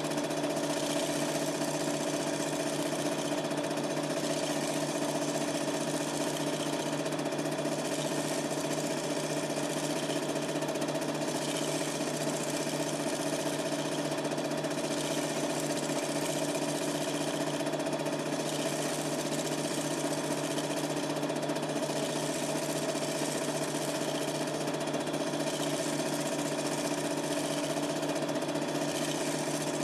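Super 8 film projector running steadily, a constant mechanical hum and rattle picked up by a camcorder's microphone.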